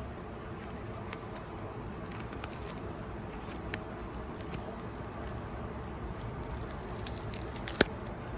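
Hands handling and peeling at a cardboard trading-card box: light scratching and scattered small clicks, with one sharper click near the end.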